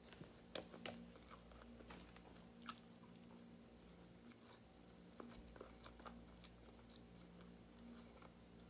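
A person quietly chewing a mouthful of baked chicken, with scattered soft wet mouth clicks and smacks. A faint steady low hum sits underneath.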